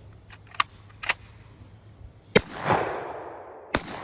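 Gunshots at an outdoor range: two lighter, sharper shots within the first second or so, then a loud shot about two and a half seconds in with a long echoing tail, and another loud shot near the end.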